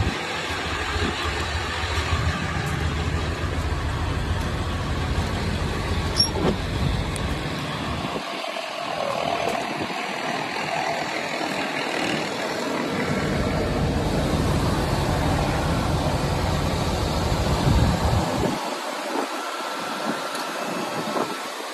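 The 1998 Ford E-350 box truck's gasoline engine running, its low rumble dropping away about eight seconds in, coming back, and dropping away again near the end.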